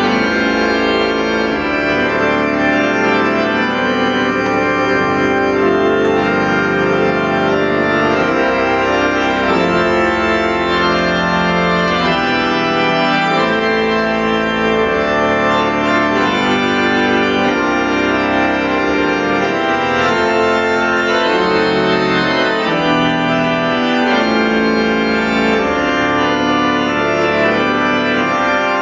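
Church organ playing the postlude that closes the service: full sustained chords over a moving bass line, at a steady level.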